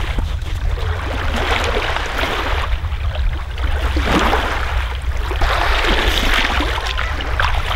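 Small waves washing onto a sandy shore, with water splashing as someone wades in shallow water and scoops it up by hand. The wash swells twice, about four and six seconds in, over a steady low rumble.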